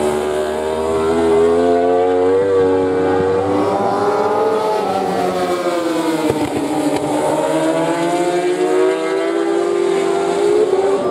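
Racing inline-four 1000 cc superbike engines at full race pace. One bike goes through the corner near the start, its note rising then falling away. From about six seconds in, the engine notes of two more bikes swell and climb in pitch as they approach.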